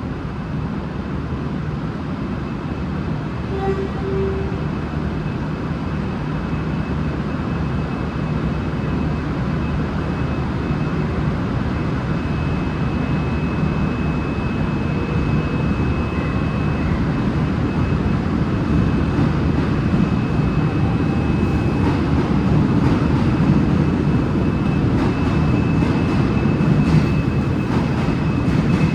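V/Line VLocity diesel multiple unit's engines running with a steady low rumble that grows gradually louder as the train departs. A faint steady high whine comes in about a third of the way through.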